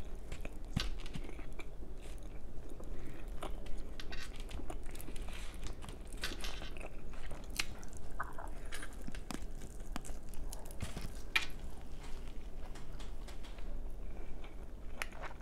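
A person biting and chewing roasted chicken meat off the bone: irregular wet mouth clicks and smacks.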